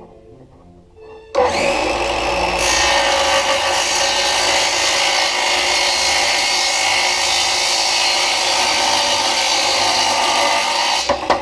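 A power tool cutting through a glass linear scale. It starts about a second in, runs steadily and loud for about ten seconds, and stops just before the end.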